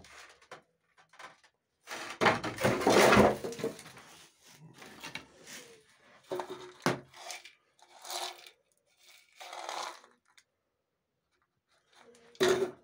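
Old metal food tins being handled on a shelf: rustling and scraping, with a few sharp knocks of tin against the shelf. The loudest scrape comes about two seconds in, and the last knock comes near the end.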